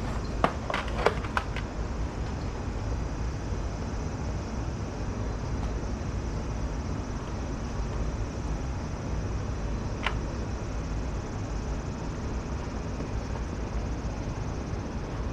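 Steady low background rumble in a kitchen. A quick run of light clicks and taps comes in the first second and a half, and one more click about ten seconds in, as food is handled in aluminium trays.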